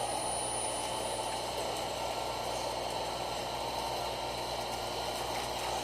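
Steady mechanical hum and hiss of a CNC machine tool running, with a few faint, steady high tones over it.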